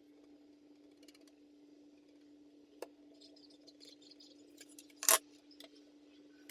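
Quiet handling sounds over a steady low hum: a sharp click about three seconds in, some light ticking, then a louder single knock about five seconds in.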